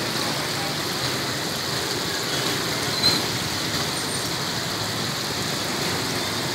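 Steady hiss and sizzle of hot oil bubbling in an electric deep fryer, mixed with roadside traffic noise. A brief high-pitched squeak comes about three seconds in.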